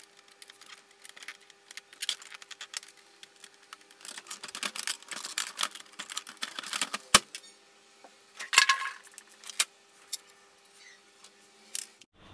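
Clicks, rattles and knocks of hard plastic as the parts and covers of an Epson ink-tank printer are handled and closed up, with a sharp knock about seven seconds in and a loud clatter near nine seconds. A faint steady hum runs underneath.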